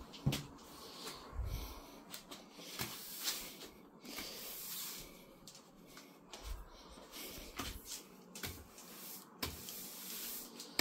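A stiff broom sweeping a kitchen floor: irregular scratchy bristle strokes with a few light knocks.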